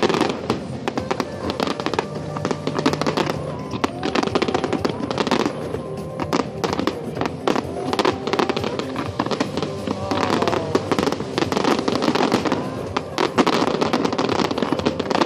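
Fireworks going off in a dense, continuous barrage of rapid cracks and pops, with music playing underneath.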